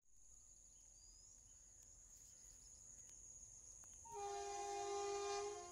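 Indian Railways electric locomotive horn from an approaching train, sounding once about four seconds in: a loud held chord of several tones lasting about a second and a half, then cutting off. Before it there is only faint background with a steady high-pitched whine.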